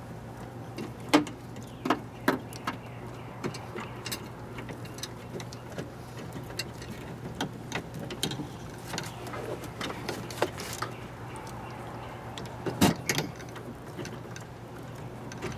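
Scattered light clicks and knocks of wiring connectors and plastic door parts being handled inside a car door, the sharpest about a second in and a double knock near the end, over a steady low hum.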